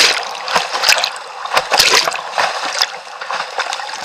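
Whitewater on a small river rapid rushing over the bow of a creek kayak. A steady roar of water is broken by a series of loud splashes as the bow punches through waves and the paddle strikes the water.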